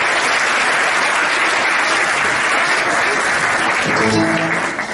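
Audience applauding steadily in a hall after a speech ends, dying away near the end.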